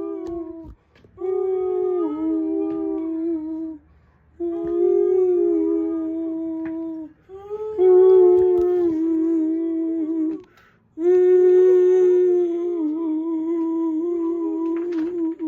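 Voices toning: five long held hummed tones, each a few seconds, broken by short breaths, the pitch wavering slightly and at times two close pitches sounding together.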